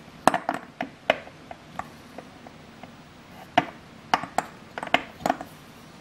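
Leatherman Bond multi-tool being handled, its metal implements clicking and clacking: a quick cluster of sharp clicks near the start, a few lighter ticks, then another cluster a little after halfway.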